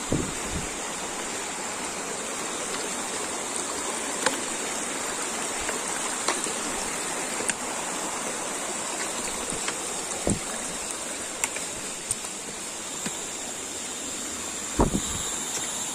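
Rushing water of a stream, even and steady, with a steady high-pitched hum above it. A few short knocks are scattered through it, the loudest just after the start and near the end.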